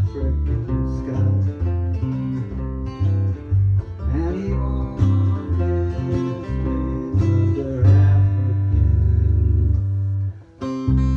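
Electric bass and acoustic guitar playing together live: a bass line moving from note to note under picked guitar notes. There is a brief break about ten and a half seconds in, then a ringing held chord.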